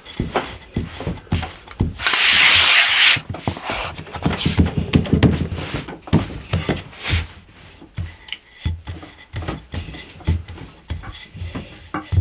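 Hands kneading and pressing yeast dough on a floured wooden board: soft thumps and rubbing of dough against the wood. About two seconds in comes a louder hiss lasting just over a second, followed by a run of low thumps.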